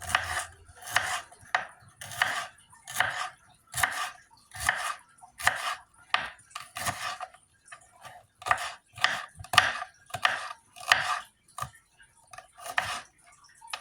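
Kitchen knife chopping a piece of bell pepper, a run of sharp cuts at about two a second, unevenly spaced.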